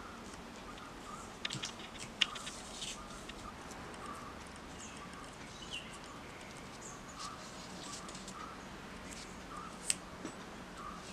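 Paper and tape being handled as a thin wooden stick is fixed to a cut-paper shadow puppet: soft crinkles and a few sharp ticks, the clearest about two seconds in and near the end. Faint bird chirps are in the background.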